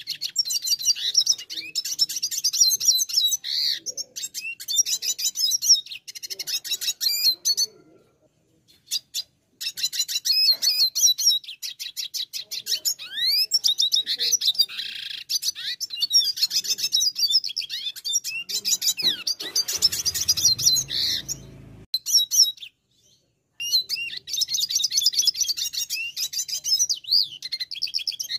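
Red siskin singing a long, fast twittering song of rapid trills and rising and falling whistles, broken by two short pauses.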